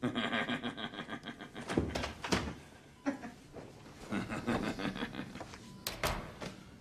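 A man pulling off a canvas jacket and tossing it and his cap onto a hospital bed: clothing rustling in stretches, with a few sharp knocks and thuds, two around two seconds in and two more near the end.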